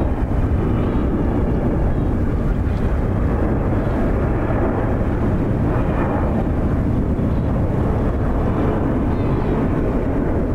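Boeing 777 jet engines running: a loud, even noise, heaviest in the low rumble, with no change in level.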